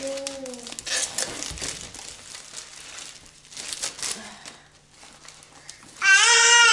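Wrapping on a boxed set of children's board books crinkling and tearing as it is pulled open, in irregular bursts. About six seconds in, a baby lets out a loud, held yell, louder than the unwrapping.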